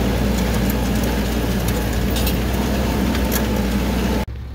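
Strong wind buffeting a phone's microphone: a loud, steady rumbling rush with scattered crackles, cut off abruptly near the end.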